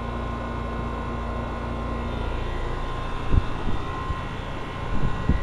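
Carrier high-efficiency central air conditioner's outdoor condenser unit running: a steady whir of its fan and compressor with a faint steady tone over it. A few low thumps come near the end.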